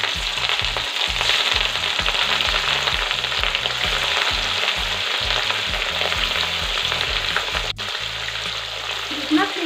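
Marinated rohu fish pieces sizzling and spitting as they fry in hot oil in a kadhai, a steady crackling hiss.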